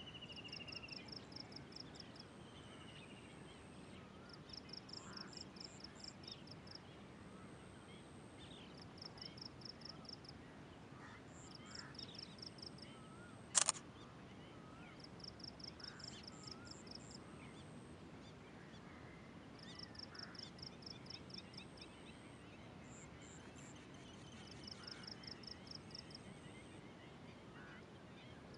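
Quiet dawn ambience over a rice paddy. Faint scattered bird chirps sound under a high, pulsing trill that comes in short runs every three to four seconds, and one sharp click comes about halfway through.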